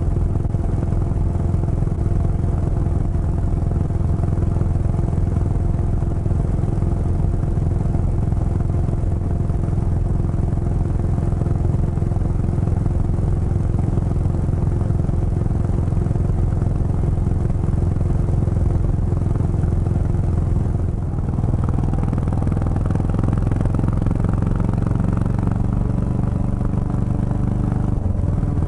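Motorcycle engine running steadily while riding at cruising speed. About two-thirds of the way through, the engine note shifts to a different pitch pattern.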